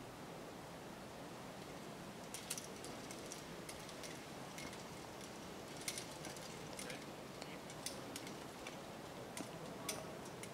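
Irregular light clicks and taps over a steady outdoor hiss, starting about two seconds in and coming in small clusters.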